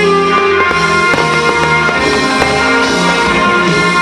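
Loud music with drums and held instrument tones, with short sharp hits scattered through it.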